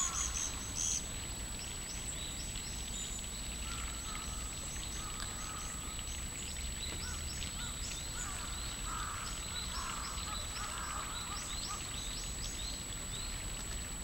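Birds calling: many short, high chirps scattered throughout, with a few lower calls around the middle, over a steady thin high-pitched whine.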